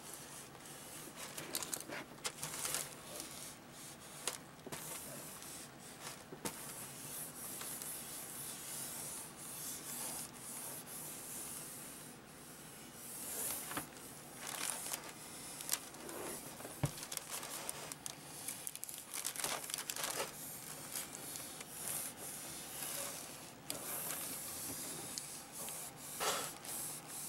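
Hot hobby sealing iron rubbing in irregular strokes over plastic laminating film on a foam airplane wing, the film crinkling as it is heat-sealed down onto the foam.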